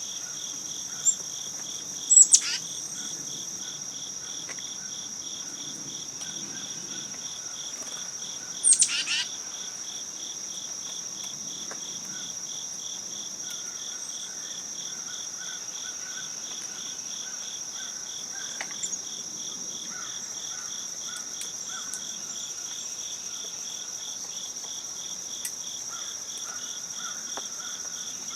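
Steady chorus of crickets and other insects: one continuous high trill over a lower, pulsing one. Two sharp, loud bird calls cut through about two seconds in and again about nine seconds in, with fainter short calls now and then.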